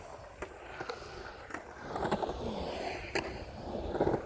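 Skateboard wheels rolling across a concrete bowl, the rumble swelling and easing, with five or so sharp knocks from the board along the way.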